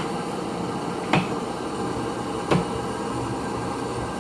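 Old Pratt & Whitney geared-head lathe running steadily with three sharp metallic clunks, one at the start, one about a second in and one about two and a half seconds in.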